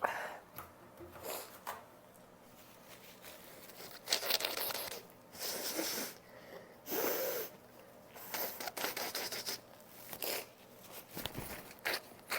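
A person with a blocked nose sniffing and blowing their nose: a string of short, rough bursts of air through the nose, coming quicker and shorter near the end.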